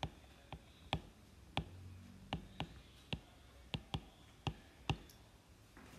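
Stylus tip clicking against a tablet's glass screen during handwriting: about a dozen sharp, irregular clicks, roughly two a second.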